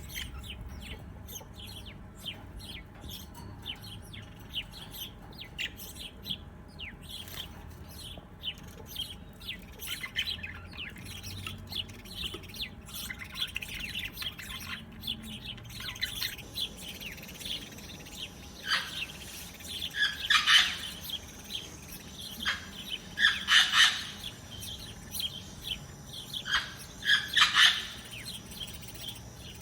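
Small birds chirping, many quick high chirps, with louder, harsher calls standing out about three times in the second half. A steady thin high tone joins about halfway through.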